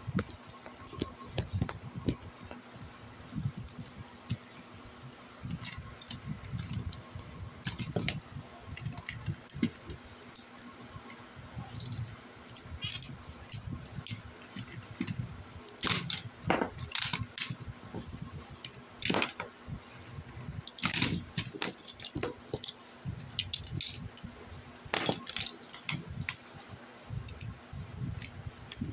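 Plastic parts of a Tobot combining robot toy clicking and clattering as they are handled and fitted together, in irregular short clicks and knocks.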